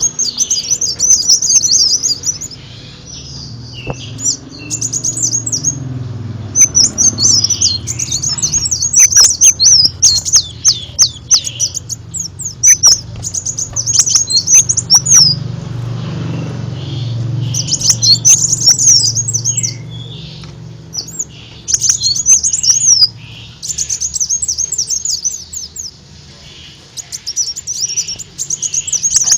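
Kolibri daun, a small sunbird, singing: rapid high-pitched chirps and trills in bursts of a few seconds with short pauses between them, over a low steady hum.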